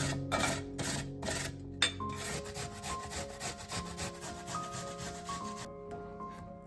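Raw potato grated on a metal box grater into a glass bowl: a run of rasping strokes, a few slow ones and then quicker ones, that stop about a second before the end.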